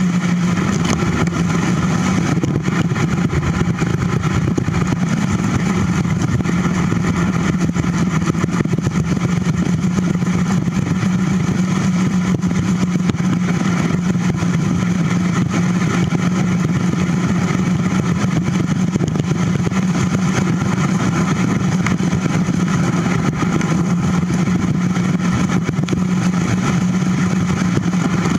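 Steady droning wind and rolling noise picked up by a bicycle-mounted camera riding at about 19 mph, with no change through the stretch.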